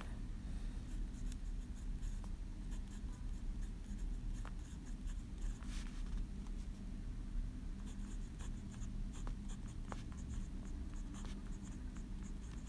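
Montblanc Meisterstück fountain pen nib scratching faintly across notebook paper in short strokes with brief pauses, as characters are hand-written, over a steady low hum.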